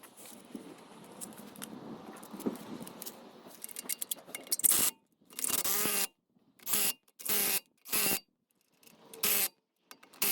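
Wheel bolts clinking and scraping as the wheel is hung back on. From about four and a half seconds in, a power tool runs in about six short, loud bursts, running the wheel bolts in.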